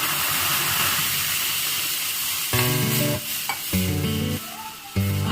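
Hot roasted gram flour and ghee in a frying pan sizzling with a steady hiss as milk goes in. About halfway through, strummed acoustic guitar music comes in over it in short phrases.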